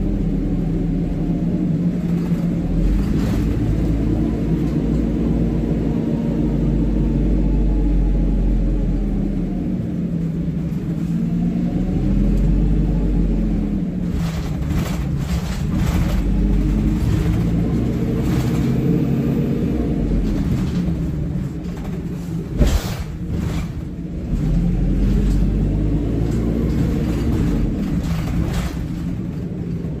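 ADL Pointer Dart single-deck bus heard from inside the saloon while under way: the engine thrash, which the uploader calls hoovering, climbs and falls again and again as the bus pulls away, changes gear and slows. In the second half the body knocks and rattles, with one sharp knock about three-quarters of the way through.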